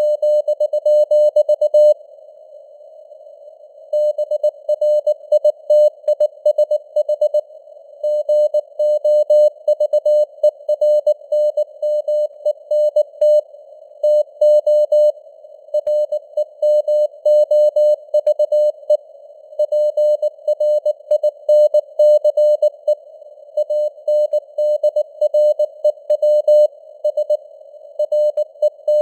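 Morse code (CW) at 19 words per minute: a single mid-pitched tone keyed on and off in dots and dashes, spelling out news headlines. Between characters there is faint simulated radio hiss, and the signal strength fades up and down (QSB). There are longer gaps between words, the longest about two seconds in.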